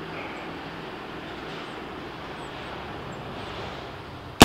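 Steady faint background noise, then right at the very end the sudden, loud report of an 1853 Pattern Enfield rifle musket firing its black-powder charge.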